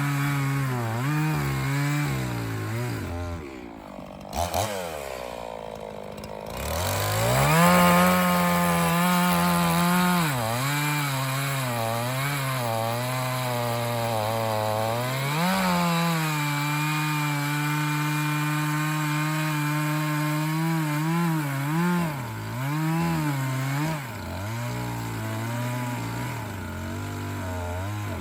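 Echo CS501P two-stroke chainsaw cutting ash wood. It is throttled up and down, drops to idle about four seconds in, then is revved to full speed again and held high for long stretches, with quick throttle blips near the end.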